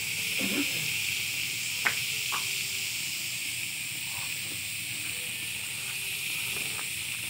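Lump of margarine sizzling as it melts in a hot pot: a steady hiss, with a sharp pop about two seconds in.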